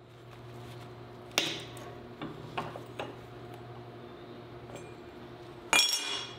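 Clicks and knocks of steel against a cast-iron bench vise as a freshly welded tab-and-pipe part is handled, ending in a loud, ringing metal clank as the part comes out of the vise jaws. A steady low hum lies underneath.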